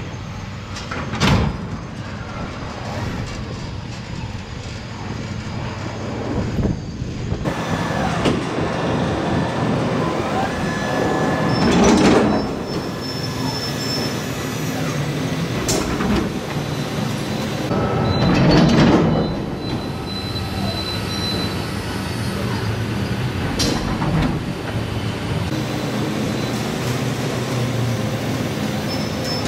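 Ship-to-shore container crane handling a pair of steel containers: a steady mechanical drone, broken by a sharp knock about a second in and two loud metallic clangs about 12 and 18 seconds in.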